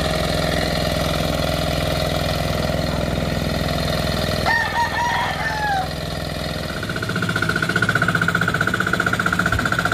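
Engine of a pagong hand tractor (turtle tiller) running steadily as it works through very soft, wet rice-paddy mud. A rooster crows once about halfway through. About seven seconds in, the engine turns louder with a rapid, pulsing beat.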